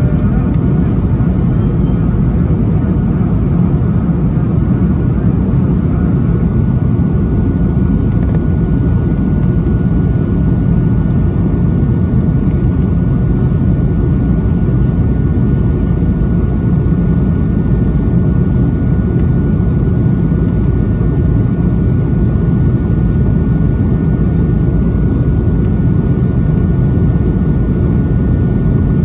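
Cabin noise of a jet airliner climbing after take-off: a steady, loud drone of engines and rushing air, with a faint steady whine above it.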